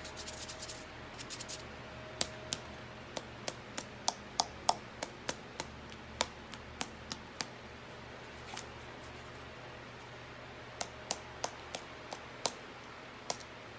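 Light, sharp taps on a cinnamon-dusted craft star, tapped to shake off the loose cinnamon: a run of about three taps a second, a pause, then a few more taps near the end.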